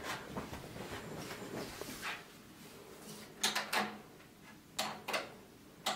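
Wall light switches clicking: several short soft clicks in pairs about half a second apart, over a low room hiss.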